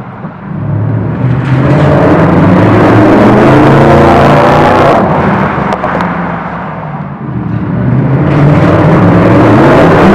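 Mercedes-Benz SLS 63 AMG's 6.2-litre V8 through a MEC Design aftermarket exhaust, accelerating hard as the car drives past, its note rising in pitch. The sound fades away around the middle, then comes back loud near the end as the car starts a faster pass.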